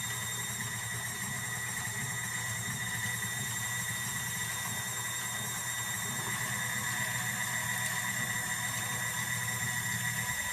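KitchenAid 5-quart stand mixer running steadily with the FGA food grinder attachment, grinding raw beef: an even motor whine with a low hum underneath.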